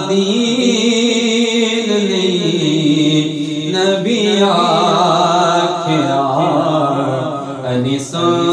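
A man's voice singing a Punjabi naat, drawing out long notes that rise and fall slowly, with a short break just after eight seconds in.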